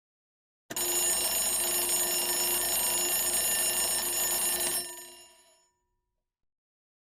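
A bell ringing loudly and continuously for about four seconds, its clapper rattling against it, then stopping and ringing out briefly.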